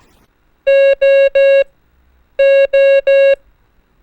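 Morse code tone sending the letter O (dah-dah-dah) twice. Each time it is three equal long dashes of a steady tone at about 600 Hz, with a pause of about three quarters of a second between the two groups.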